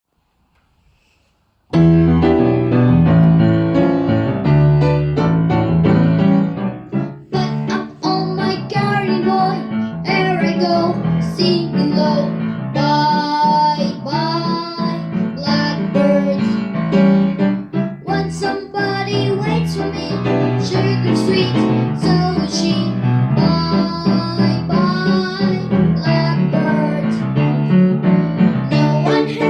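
A song with piano or keyboard accompaniment and a singing voice, starting after a short silence about two seconds in.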